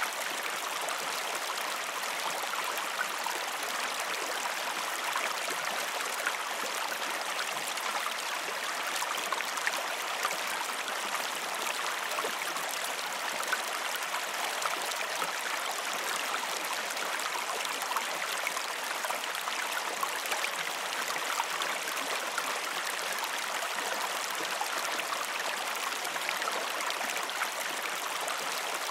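Shallow creek running steadily over rocks: an even rush of water with small splashes scattered through it.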